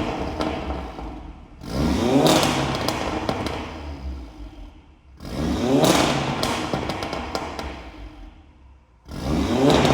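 Audi TTS's turbocharged engine being blipped three times, about every three and a half seconds, through a 3-inch stainless-steel downpipe. Each rev rises sharply and then falls away over a few seconds, with sharp crackles as the revs drop.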